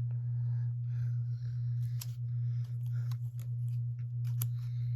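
Paper and plastic rustling with light clicks as small stickers and die-cut embellishments are handled, over a steady low electrical hum.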